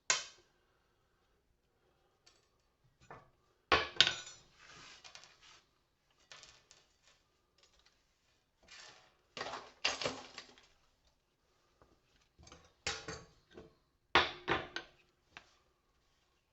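Small metal parts from porcelain lamp holders clinking and clattering as they are handled and dropped while being sorted. There are about six sharp clinks at irregular intervals, some followed by a short rattle.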